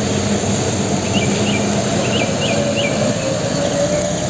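A UD Trucks fuel tanker's diesel engine running as it drives along a wet road, with a steady rush of tyre noise and a whine rising slowly in pitch. Small birds chirp several times about a second in.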